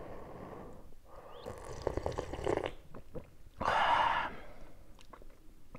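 A man slurping soup broth from a spoon: soft sipping noise, then one louder slurp about four seconds in.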